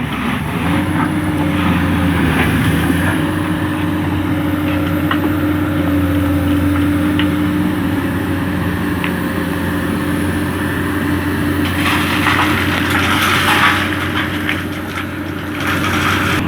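Komatsu PC200 excavator's diesel engine running steadily under working load, with a few light knocks, then a louder scraping rattle about twelve seconds in as the machine works through stone and sand.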